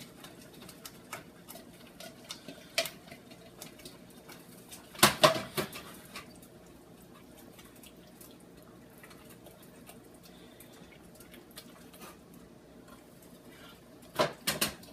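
Pot of thick chili simmering, bubbles popping in small irregular ticks, with louder knocks about five seconds in and twice near the end.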